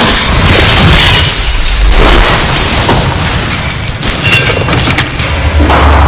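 Loud, continuous crashing and clattering, like objects falling and smashing, over a deep rumbling boom that swells about two seconds in and again near the end.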